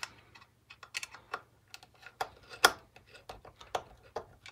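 Light, irregular clicks and ticks of a Phillips screwdriver turning out the screws that hold the circuit board inside a small plastic speaker case, with the tip catching in the screw heads and the hollow plastic housing being handled.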